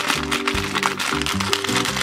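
A foil blind-bag wrapper crinkling as it is pulled open by hand, over background music.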